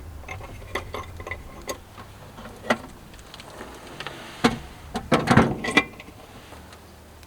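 Irregular light clicks and clanks, with a louder cluster of knocks about five seconds in, over a faint low hum.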